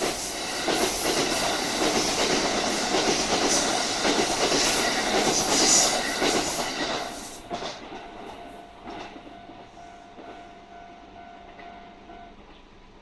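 Kintetsu Nara Line electric train passing on a steep 30‰ upgrade, its wheels clacking over the rail joints as it works hard up the climb. It is loud for about the first seven seconds, then fades steadily as it moves away.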